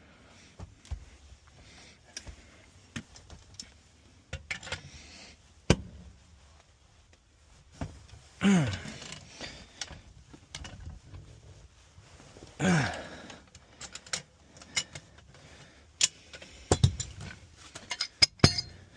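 Metal clinks and clicks of wrenches on pipe fittings as an old furnace gas valve is unscrewed from the gas pipe. Two louder drawn-out sounds falling in pitch come about eight and a half and twelve and a half seconds in.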